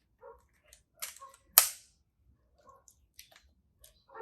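Voigtländer Bessamatic 35mm camera being handled: a few small mechanical clicks, then two sharp clicks about a second and a half in, the second the loudest.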